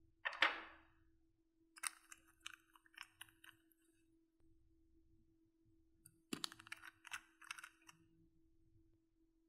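Close handling of small nail polish bottles: a sharp squish-like knock about half a second in, then two runs of quick small clicks and crackles, the second starting with a low knock, as the bottles are gripped and their caps twisted open. A faint steady hum lies underneath.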